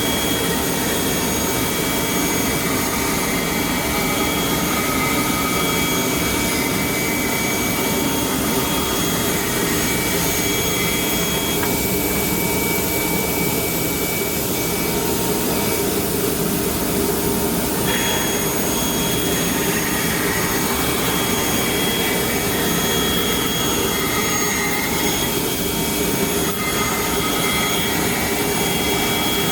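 CNC curve saw running steadily, a loud continuous machine noise with a thin high whine over it. The whine drops out for several seconds midway, then comes back.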